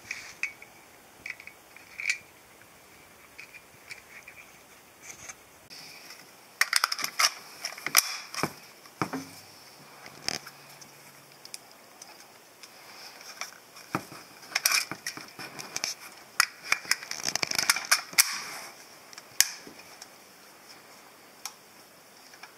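Hands handling a Benjamin Wildfire PCP air rifle and its plastic rotary magazine: scattered plastic clicks and knocks, with busier bursts of clicking about a third of the way in and again after the middle.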